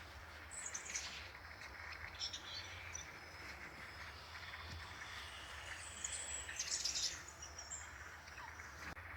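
Small birds chirping in short, high bursts, busiest about six to seven seconds in, over a steady background hiss.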